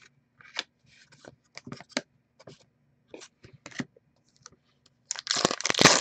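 Trading cards and packs handled on a table with scattered light clicks and taps, then about five seconds in a card pack's wrapper is torn open with loud crinkling.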